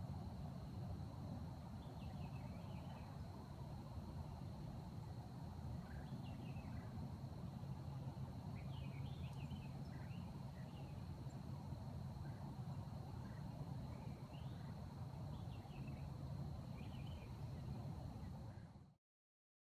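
Faint woodland ambience: a steady low rumble and a steady high insect-like drone, with scattered short bird chirps every few seconds. The sound cuts off abruptly near the end.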